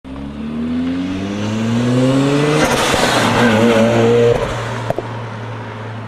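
Car engine accelerating, rising steadily in pitch for the first couple of seconds, then a loud rush of noise with a wavering squeal in the middle, settling to a steady low drone for the last second and a half.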